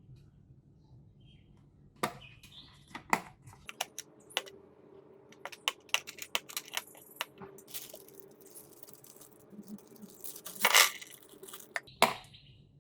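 Plastic chess pieces and the folding chess case being handled: a string of sharp clicks and taps, with bursts of rustling in the middle and a louder rustle near the end.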